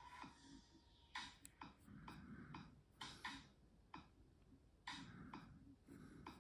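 Faint pencil strokes on drawing paper: a dozen or so short, irregular scratches and light clicks.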